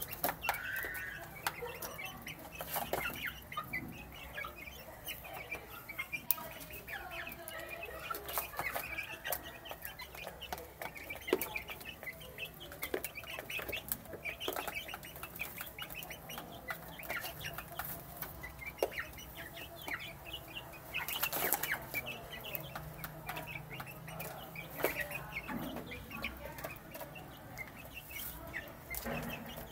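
Young chicks peeping over and over in short high chirps while they eat, mixed with many sharp taps of pecking. There is a brief louder rustling burst, like wing flapping, a little past two-thirds of the way through.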